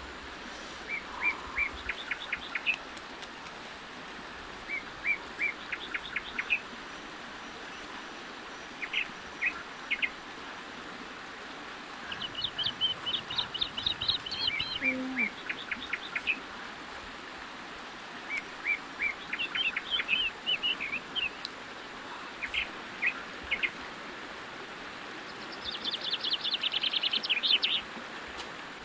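Small birds singing: quick series of short, high chirps in phrases that come again every few seconds, over a steady background hiss.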